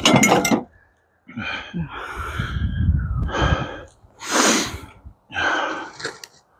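A person breathing hard close to the microphone: a series of loud, separate gasping breaths, each under a second long, from exertion while hauling heavy rubble.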